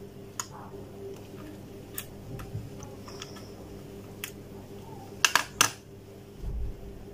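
Small plastic clicks and handling noise from a remote control's coin-cell battery tray being worked out of its slot, with a quick run of three sharp clicks about five seconds in, the loudest sounds, and a soft low thump just after.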